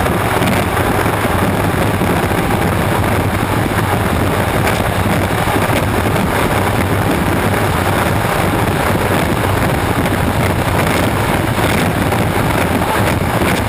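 Onboard sound of a turbine-powered unlimited hydroplane running at racing speed: a loud, steady rush of engine noise mixed with wind buffeting the microphone and hull spray.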